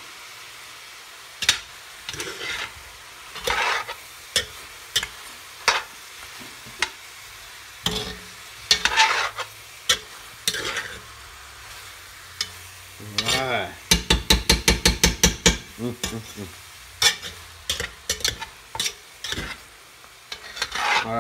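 A metal utensil scrapes and stirs browned pork and vegetables against the bottom of a cast iron pot over a steady sizzle, working the browned bits loose. The strokes come irregularly, with a quick run of about a dozen scrapes around two-thirds of the way through, and some strokes squeal against the iron.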